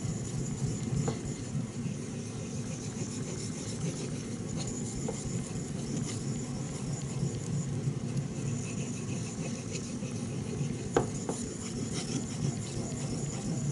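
Steel knife blade being stroked back and forth on a wet natural Japanese whetstone covered in nagura slurry, a steady gritty scraping. One light click about eleven seconds in.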